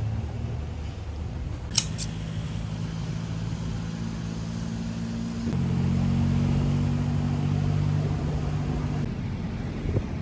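A low, steady motor hum whose pitch shifts abruptly a few times, with a sharp double click about two seconds in.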